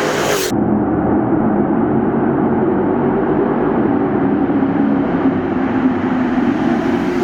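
A car engine running steadily at cruise, a continuous low drone whose pitch sags slightly late on and picks up again near the end.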